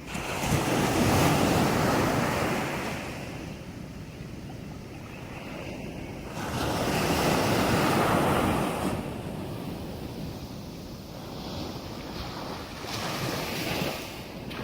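Sea waves breaking on a beach, each surge rushing in and washing back: two loud breakers about six seconds apart, then smaller ones near the end.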